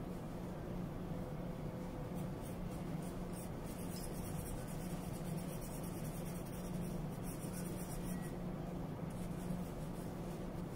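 Soft paintbrush strokes rubbing on a small ball, over a steady low hum.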